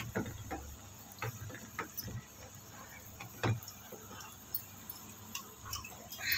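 Spinach pakoras deep-frying in hot oil: a faint sizzle with scattered small pops and crackles, one louder pop about three and a half seconds in.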